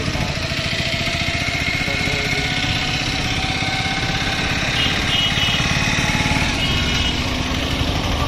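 Motorcycle engine running steadily as the bike rides along the road, with road and traffic noise.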